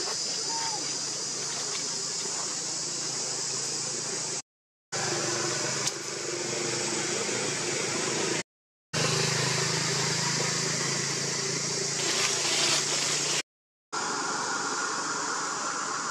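Steady outdoor background hiss with a strong high-pitched band, broken by three short dead silences about 4.5, 8.5 and 13.5 seconds in. A faint low hum sits under it in the stretch from about 9 to 13.5 seconds.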